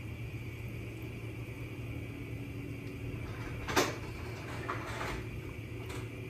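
Kitchen work sounds over a steady hum: one sharp clatter about four seconds in, then a few lighter clicks.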